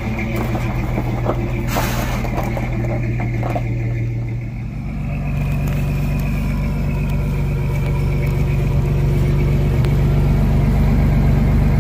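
Chevrolet S10 pickup's engine running steadily, a few sharp clicks near the start. About five seconds in, the engine speed picks up and it grows louder.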